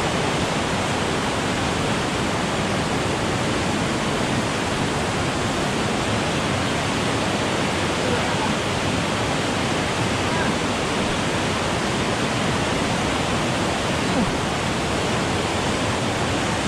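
Waterfall and whitewater pouring over boulders into a river pool, a steady, unbroken rush of water.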